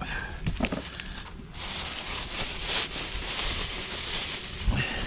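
Plastic shopping bag rustling and crinkling as it is pulled open and rummaged through, starting about a second and a half in and stopping just before the end.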